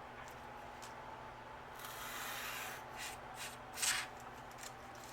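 Paper being handled and rubbed while planner stickers are worked on: faint at first, then a rustle about two seconds in and a few short scrapes, the loudest near four seconds.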